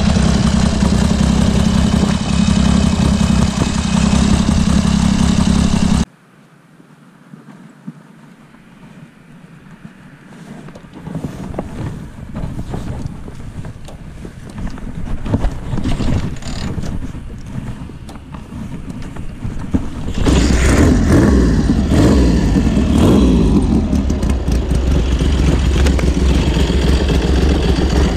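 1971 BSA Rocket III's 740 cc three-cylinder engine running steadily, stopping abruptly about six seconds in. Quiet clicks and handling noises follow until the engine starts again about twenty seconds in. It is blipped up and down a few times, then settles to a steady idle.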